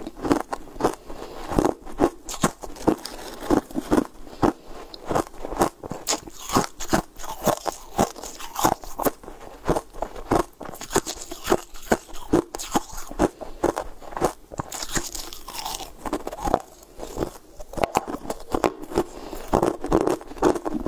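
Close-up crunching and chewing of frozen blue sweet ice chunks: a dense, irregular run of sharp crunches, several a second.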